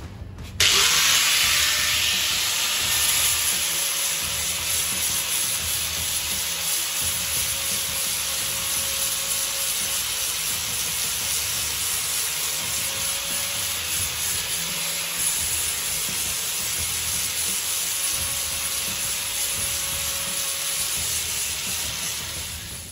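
Corded angle grinder switched on about half a second in and grinding down the boat's floor, taking off old paint: a steady harsh hiss of disc on surface over the faint whine of the motor. The grinding tapers off near the end.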